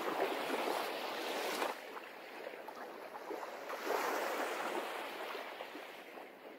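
Small waves washing and lapping, swelling twice: at the start and about four seconds in.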